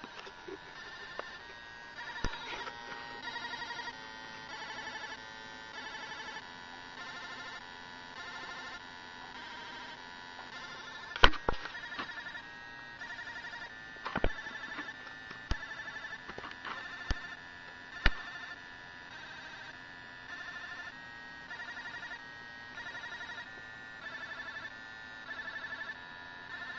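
A 1-bit square-wave synthesizer on an MSP430 microcontroller plays a repeating arpeggio: short buzzy notes stepping through a four-note sequence of root, major third, fifth and octave. A few sharp clicks sound over it, the loudest about eleven seconds in.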